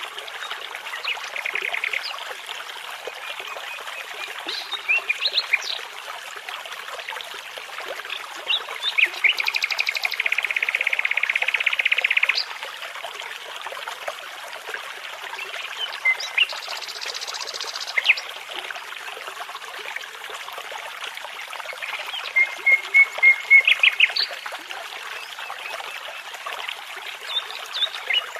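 A babbling brook trickles steadily while a nightingale sings over it in short separate phrases: fast buzzy trills, quick runs of repeated notes and sharp whistles. The longest trill, about two seconds, comes near the middle.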